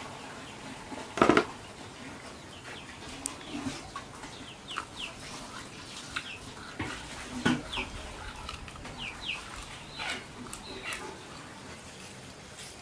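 Chickens calling, with short high falling peeps scattered through, among knocks of household work; a loud sharp knock about a second in is the loudest sound.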